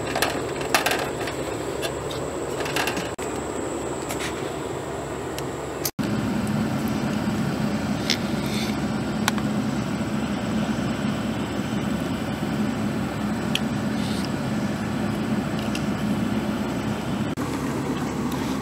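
A steady mechanical hum with a few sharp metallic clicks in the first three seconds, from a hand tool working on a sheet-metal gutter. About six seconds in, the sound cuts and the hum carries on slightly louder.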